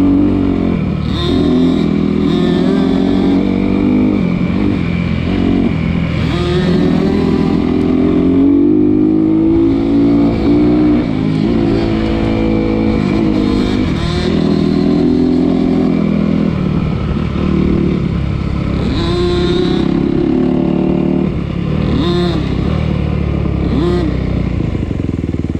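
Off-road vehicle engine ridden hard on a trail, revving up and backing off again and again as the throttle is worked.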